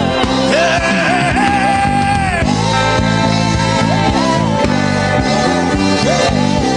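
Worship music with a steady drum beat, held bass notes and a lead melody that wavers with vibrato.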